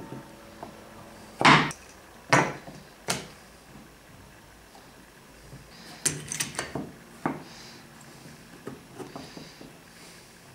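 Wooden plane parts and metal bar clamps being handled on a workbench: three sharp knocks in the first few seconds, then a burst of clatter about halfway through and a few lighter clicks near the end.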